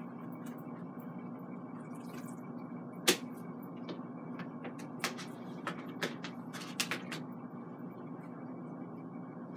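Paper towels rustling and dabbing on raw salmon fillets on a plate, with a few sharp taps, the sharpest about three seconds in. A steady low hum runs underneath.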